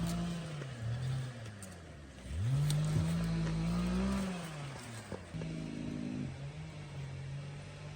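Motor vehicle engine running, its pitch rising as it revs up a couple of seconds in and then holding steady.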